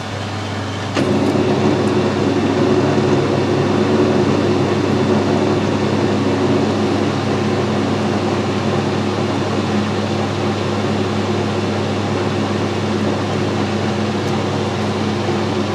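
Metal lathe starting up about a second in and then running steadily over a low hum, with a machine tap in the tailstock chuck feeding into the spinning part to cut an 8 mm thread.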